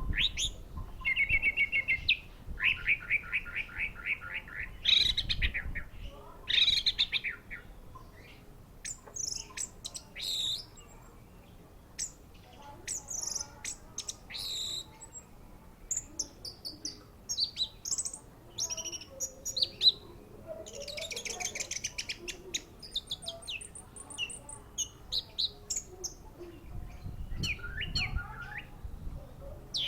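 Orange-headed thrush (anis merah) singing a long, varied song. It opens with fast rattling trills, then moves to a string of high, changing notes and chatters, with short pauses between phrases.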